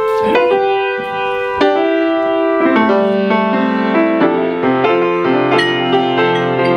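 Grand piano being played: several struck chords ringing on, then from about halfway a moving line of lower bass notes under the chords.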